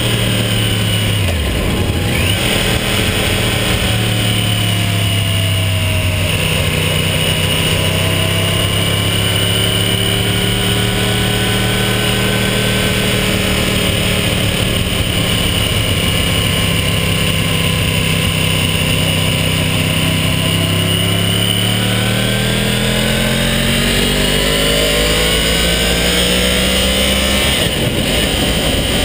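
Yamaha R1's inline-four engine running under way, over a steady rush of wind and road noise. The engine note drops sharply about a second and a half in, holds fairly steady while cruising, then rises over several seconds near the end and drops sharply again just before the close.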